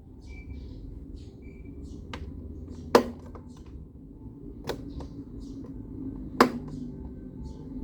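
GMC BM-702 9-inch desk fan running with a low hum, and three sharp clicks about 1.7 seconds apart from its faulty gearbox.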